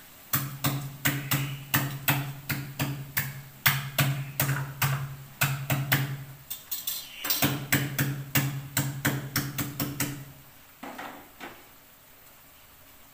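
Kitchen knife chopping on a wooden cutting board in a steady rhythm of about three strikes a second. The chopping stops about ten seconds in, followed by a few lighter taps.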